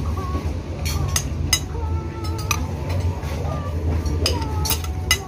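Food-stall ambience: scattered clinks of plates and cutlery, faint background voices, and a steady low rumble underneath.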